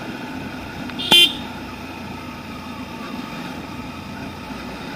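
Motorcycle riding along with steady engine and road noise. About a second in, a vehicle horn gives one short beep.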